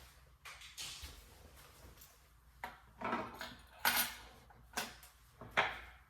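Plastic parts inside a refrigerator being handled and taken apart, giving about six separate clicks and clatters spread over a few seconds.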